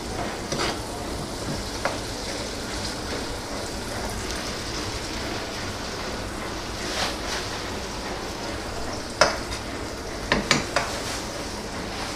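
Softened chopped tomatoes sizzling steadily in oil in a frying pan, with a metal spatula knocking and scraping against the pan a few times, loudest about nine seconds in and in a quick cluster near the end.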